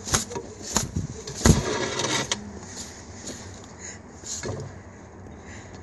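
A pigeon beating its wings at a hand: several sharp wing slaps and a short burst of flapping in the first two seconds or so, then a softer slap a few seconds later.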